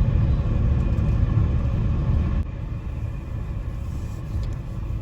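Low, steady rumble of a vehicle on the move: road and wind noise from driving. It gets somewhat quieter about halfway through.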